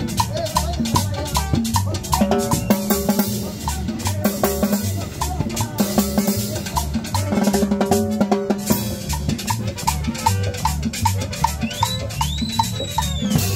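A live band plays dance music, with a drum kit's snare and bass drum keeping a steady beat over a repeating bass line. Near the end, a high whistle-like note rises, holds and falls.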